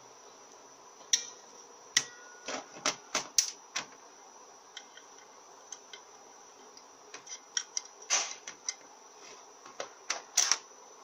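Aluminium automatic-transmission valve body and its parts being handled on a metal workbench: a scatter of sharp clicks, taps and light metal knocks, in two clusters, one about two seconds in and another near the end.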